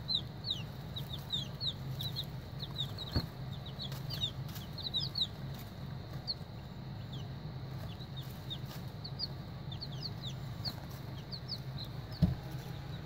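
A group of baby chicks peeping: many short, high, falling cheeps, scattered and overlapping through the whole stretch, over a steady low hum.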